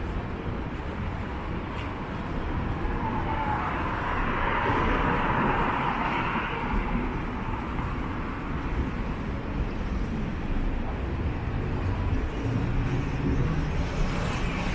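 City street traffic: cars driving past, one vehicle swelling louder about four to seven seconds in as it passes.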